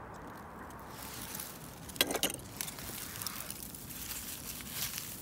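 Dry grass rustling and crackling as a hand reaches into it, with a few short crackles over a faint outdoor hiss.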